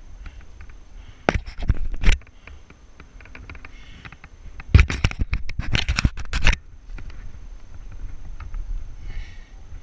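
A climber's hands, shoes and clothing scraping and knocking against beech bark while free-climbing the tree, in a burst about a second in and a longer one from about five to six and a half seconds in. A low rumble sits on the microphone throughout.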